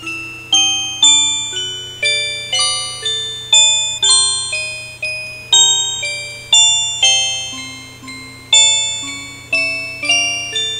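Music: a slow melody of bell-like struck notes, each ringing and dying away, about two notes a second.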